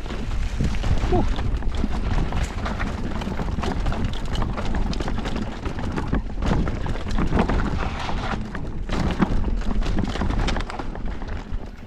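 Electric mountain bike descending a rough bike-park trail: a continuous clatter of knocks and rattles as the tyres and bike run over dirt and rocks, over a steady low wind rumble on the camera microphone.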